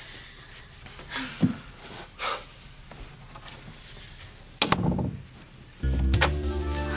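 A bedroom door pushed shut with a sharp latch click and a low thud. About a second later, sustained background music swells in and is louder than the door.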